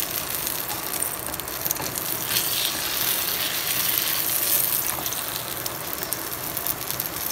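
Egg omelette sizzling steadily in hot oil in a nonstick frying pan, with a slotted spatula scraping under it as it is lifted to be flipped.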